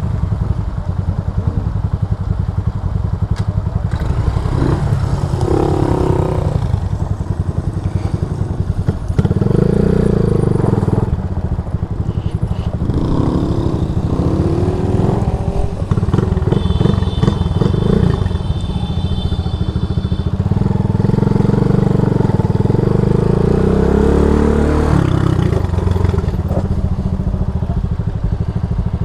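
Single-cylinder CG250 engine of a small Grom-style motorcycle running under way, its revs rising and falling with the throttle.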